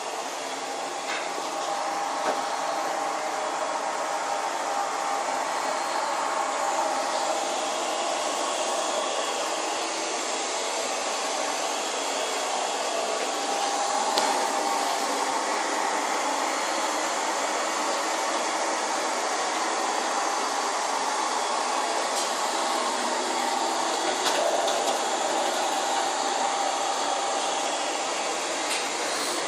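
Vacuum cleaner running steadily: a continuous motor and airflow whoosh with a faint steady hum, without a break.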